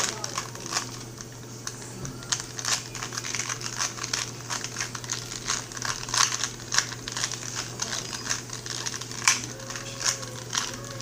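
Plastic 2x2 Rubik's cube being turned quickly by hand during a speed solve: a rapid, irregular run of small clicks, several a second.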